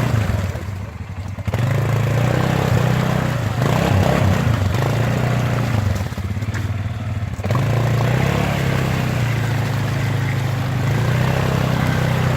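ATV engine running under throttle, easing off twice and picking back up.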